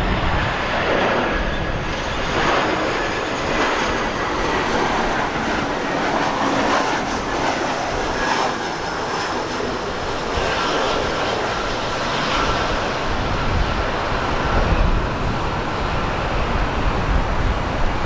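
Jet airliner's turbofan engines running: a broad rushing noise with a faint steady high whine. Wind buffets the microphone at times.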